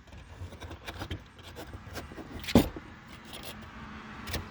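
Clicks and small metallic rattles from a utility knife and its blade being handled, with one sharp, loud click about two and a half seconds in.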